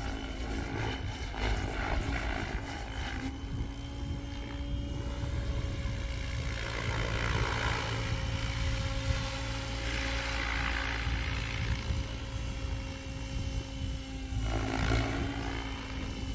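GooSky RS7 electric RC helicopter in flight: a steady rotor and motor hum held at one pitch, with the blade noise swelling and fading as it manoeuvres.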